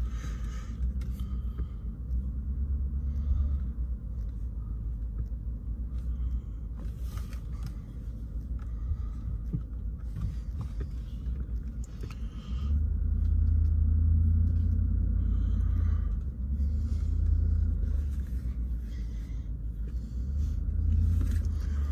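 Low rumble inside the cab of a Ford F-150 with its 5-litre V8 running, the truck hitched to a heavy 31-foot boat trailer. The rumble swells for a few seconds a little past the middle and again briefly near the end.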